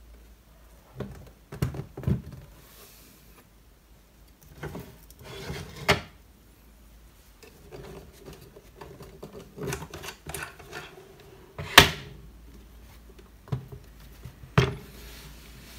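Renoir beechwood table easel being folded down by hand: its wooden mast and frame parts knock and clack against each other and the box, with wood sliding and rubbing between the knocks. The sharpest knock comes about three-quarters of the way through.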